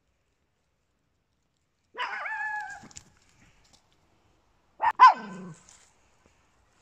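Small dog barking twice. The first call, about two seconds in, is drawn out for about a second with a wavering pitch. The second, about five seconds in, is short and sharp and drops quickly in pitch.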